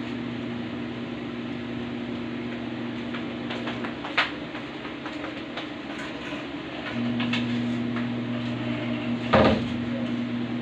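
Steady low electrical hum that cuts out about four seconds in and comes back about three seconds later, with a sharp click about four seconds in and a heavier knock near the end.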